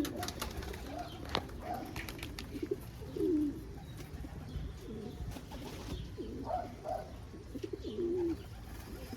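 Domestic pigeons cooing, several low coos one after another, with a few sharp taps near the start.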